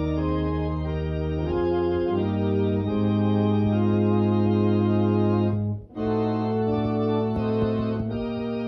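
Organ music: sustained chords held and changing every second or so, with a brief break about six seconds in.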